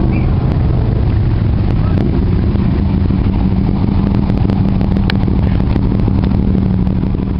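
Motorcycle engines running as a procession of motorcycles and a three-wheeled motorcycle rides past, a steady low engine drone throughout, with one sharp click about five seconds in.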